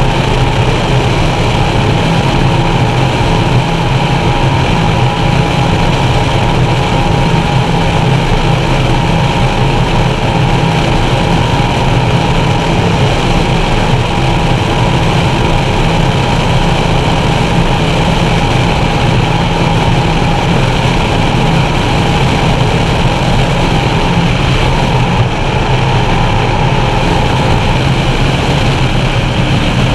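Skater 368 Supercat offshore racing catamaran's engines running flat out at race speed, heard from inside its enclosed cockpit: a loud, steady drone that barely changes.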